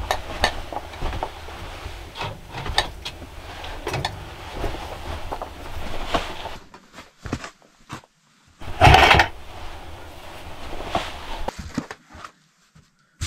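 Handling noises: glass canning jars clinking in a wire basket as it is set down on the floor, with knocks and footsteps. About nine seconds in, a louder clatter as a plastic bucket is moved, followed by a few lighter knocks.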